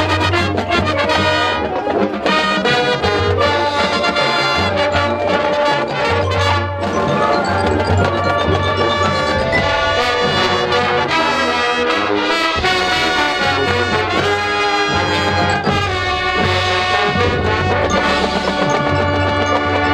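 High school marching band playing live on the field, brass in the lead with percussion keeping time.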